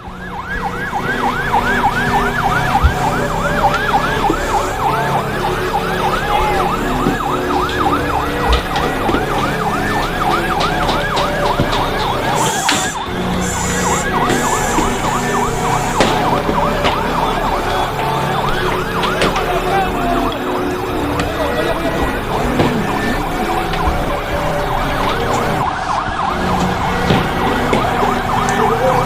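Riot sound effect: several sirens yelping in fast rising-and-falling sweeps and wailing over a dense background of crowd voices, with a few sharp bangs around the middle.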